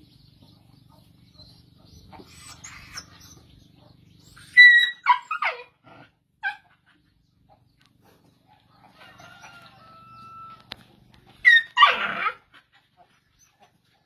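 Animal cries: two loud bursts of high, squealing calls that fall in pitch, about five seconds in and again near twelve seconds, with fainter calls in between.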